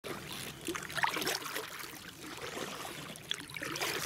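Water trickling and lapping along the side of an inflatable canoe as it moves through the water, with a couple of light splashes.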